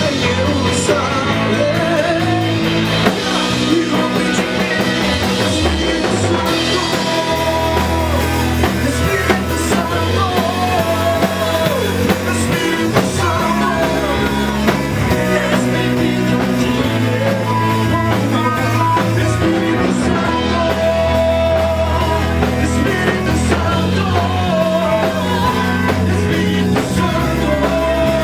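Live worship band playing an upbeat Brazilian gospel song: singing over drum kit, guitar and a steady bass line.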